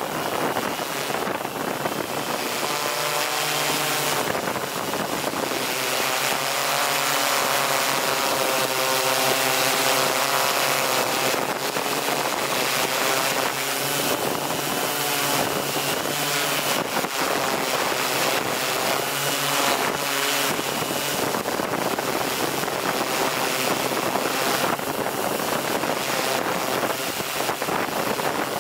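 Radio-controlled model aircraft in flight: the buzz of its electric motors and propellers wavers up and down in pitch and fades after about twenty seconds, over steady wind noise on the microphone.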